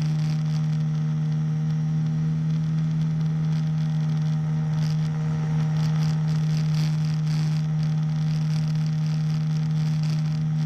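Small engine of a motorized hang glider running steadily at constant throttle, a steady drone with an unchanging pitch, with wind hiss over it as the glider climbs slowly under power.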